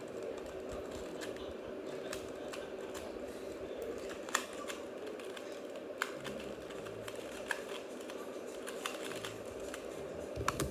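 Plastic puzzle cube being turned by hand: irregular sharp clicks as its layers snap round, over a steady low hum.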